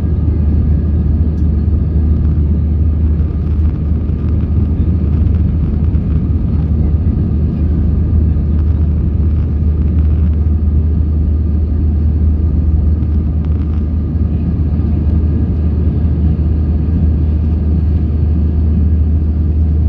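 Airbus A320ceo cabin noise during the climb after takeoff, heard from a window seat over the wing: a steady deep drone of the engines and rushing air, with faint steady whining tones above it.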